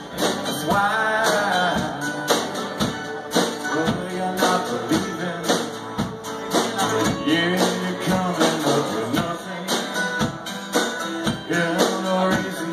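Live acoustic band playing a song: strummed acoustic guitar and a second plucked string instrument over a steady percussion beat with tambourine, with a man singing.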